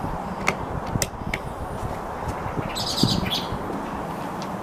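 A few light clicks and knocks as an air rifle is handled on a table, then a bird chirping briefly about three seconds in, over steady outdoor background noise.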